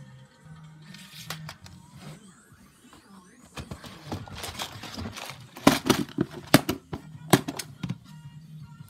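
Hard plastic storage drawers and a plastic compartment parts case being handled, giving a cluster of sharp clacks and knocks about two thirds of the way in, over background music.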